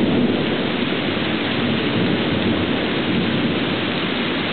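Heavy thunderstorm downpour: a steady, dense hiss of rain pouring onto wet pavement and a patio.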